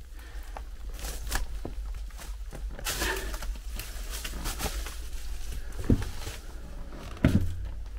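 Footsteps and scuffing, with rustling of clothes and backpack, as a person squeezes through a narrow concrete bunker passage, over a steady low rumble. Two louder dull thumps come about six and seven seconds in.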